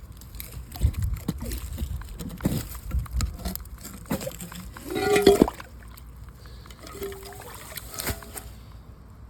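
Water sloshing and splashing in a flooded water meter box as it is opened and handled, with scattered knocks and scrapes and a short squeak about five seconds in.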